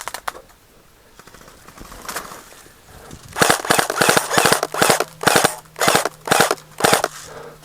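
Airsoft electric guns firing in rapid full-auto bursts. There are about eight short bursts in quick succession, starting a little over three seconds in.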